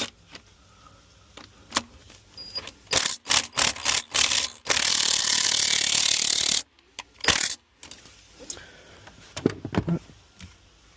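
Power drill running for about two seconds, drilling out the stub of a broken spark plug in the cylinder head, after a run of sharp metal clicks and knocks of tool handling; a short second burst of drilling follows.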